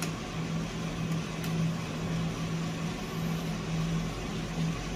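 Electric coffee roaster running with a steady motor-and-fan hum, and a couple of faint sharp pops as the beans begin first crack.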